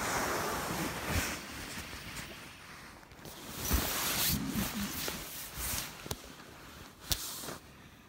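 Close rustling of nylon hammock and quilt fabric being shifted and handled, with a few sharp knocks. It is loudest near the start and again around the middle, then dies down.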